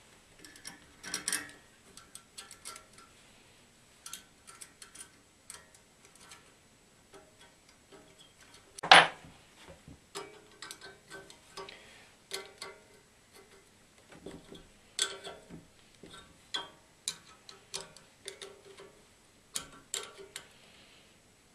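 Irregular small metallic clicks and taps of a screwdriver and spanner working on a battery charger's rectifier terminals as the AC wires are fastened back on, with one much louder sharp clack about nine seconds in.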